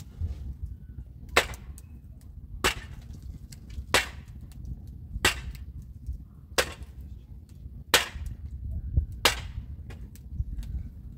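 A hand tool striking wood with sharp blows at a steady pace, about one every 1.3 seconds, seven in all.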